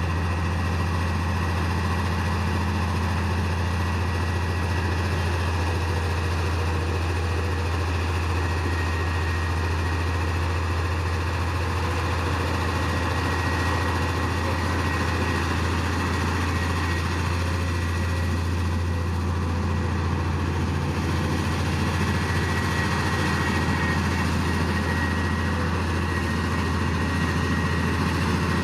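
Heavy diesel engine of earthmoving equipment running steadily with a deep, even drone and a faint high whine over it.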